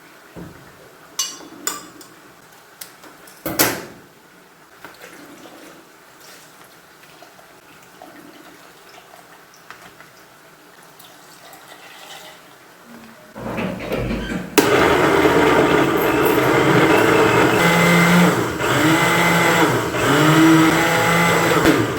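A few light clinks of dishes or glass, then a blender starts about thirteen seconds in and runs loudly, its motor hum wavering in pitch as it churns, until it stops at the end.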